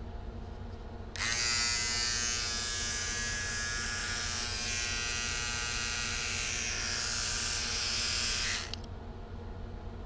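Philips OneBlade electric trimmer switched on about a second in, running with a steady high buzz for about seven seconds, then switched off.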